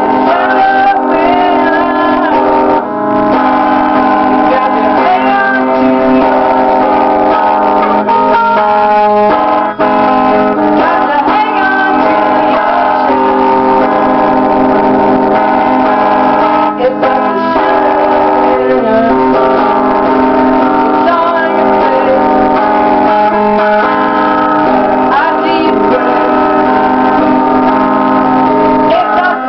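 Loud, dense song music with sustained instrumental chords, without words.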